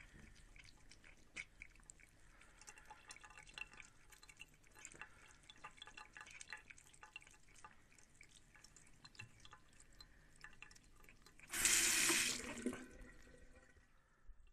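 A cat lapping from a thin stream of tap water, with quick wet smacking clicks over the trickle of the running tap. About eleven seconds in comes a loud rushing noise lasting just over a second.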